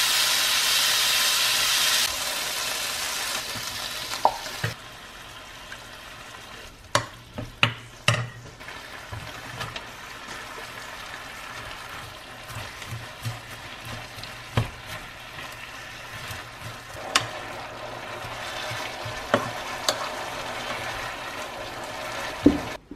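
Chicken breast and bean sprouts sizzling as they are stir-fried in a pan, with a spatula knocking against the pan now and then. The sizzle is loudest for the first few seconds, drops back by about the fifth second, and grows louder again near the end.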